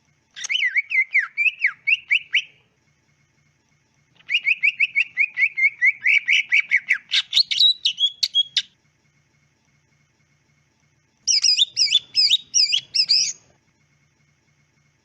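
Cucak ijo (green leafbird) singing in three bursts of rapid, repeated whistled notes with pauses between them. The middle burst is the longest and climbs higher in pitch near its end, and the last is pitched higher still.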